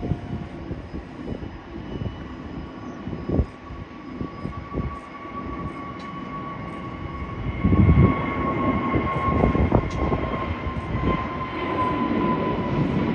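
Jet airliner engines running: a steady whine that falls slightly in pitch over an uneven low rumble, which grows louder about halfway through.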